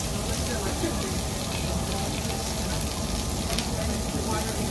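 Meat sizzling steadily on a tabletop Korean barbecue grill.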